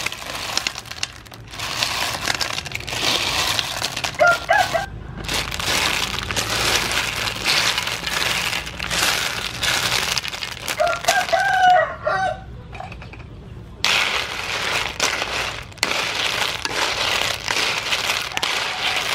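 Cockles tipped from a basket into a metal wok of boiling water and stirred with a wooden spoon, the shells clattering against one another and the pan. A chicken calls briefly about four seconds in, and a rooster crows about eleven seconds in.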